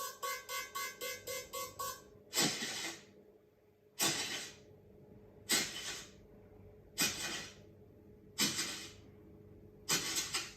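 Played-back sound effects. A rapid run of short pitched pulses, about six a second, stops about two seconds in. It is followed by six short hissing bursts about a second and a half apart.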